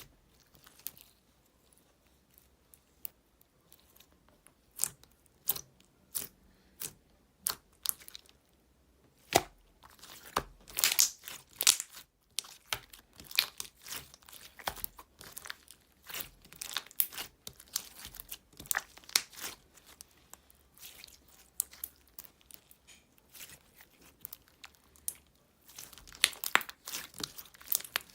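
Clear slime being squeezed and stretched by hand, making sharp wet clicks and pops. They come singly for the first several seconds, then in quick dense clusters from about a third of the way in.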